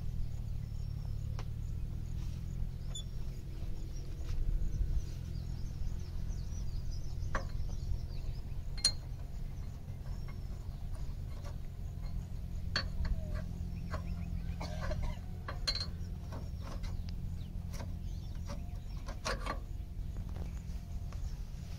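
Light clinks and knocks of a tow strap and metal hook being fitted to a stuck tractor's front, over a low, steady rumble, with a few faint bird chirps.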